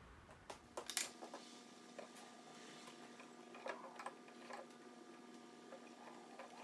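Faint, scattered light clicks and taps of warp yarn being threaded by hand, with a hook, through the reed of a tabletop weaving loom. Under them a faint steady hum starts about a second in.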